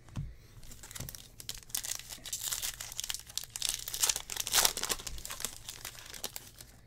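Wrapper of a Stadium Club baseball card pack crinkling as it is torn open by hand: a dense run of crackles, loudest a little past the middle.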